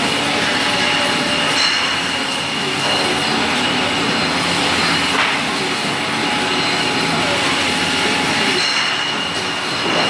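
Brewery packaging-line conveyors and machinery running: a steady, dense clatter with a thin, steady high whine through it.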